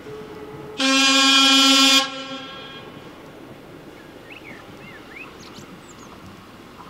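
Horn of a Czech Railways Class 814 diesel railcar sounding one loud single-tone blast of just over a second as the railcar approaches, followed by a low steady rumble.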